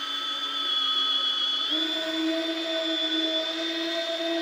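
FLEX PE 150 cordless rotary polisher, fitted with a hard foam pad loaded with cutting compound, running at low speed on sanded car clear coat with a steady motor whine. About two seconds in the pitch steps up slightly and the whine gets a little louder as the speed rises.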